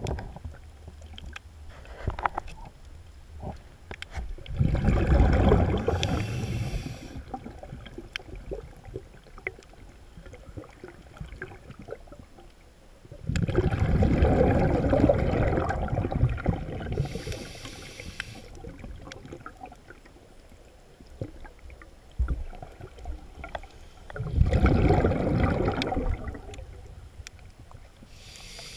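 Scuba diver breathing through a regulator underwater: three long bursts of exhaled bubbles roughly ten seconds apart, each ending in a short hiss.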